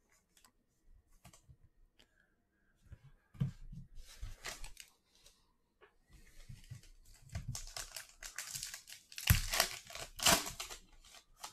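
Plastic trading-card pack wrapper crinkling as it is handled, then ripped open, loudest about nine and ten seconds in. A few faint taps come first.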